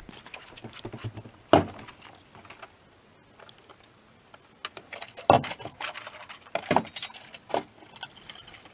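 Small metal parts and tools clinking and clattering as they are handled, with several louder knocks.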